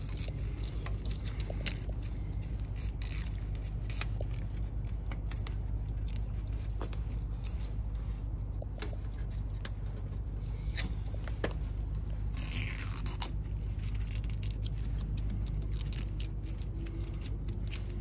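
Small metal scraper blade scratching and clicking against a steel truck bed while old vinyl decal lettering is lifted and peeled off, in irregular short strokes over a steady low hum.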